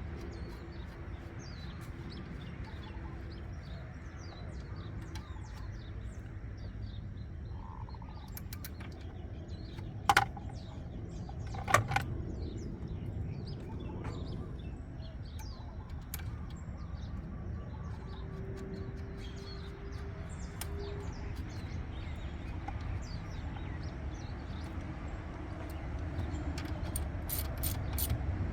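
Birds chirping over a steady low background hum, with two sharp clicks about ten and twelve seconds in.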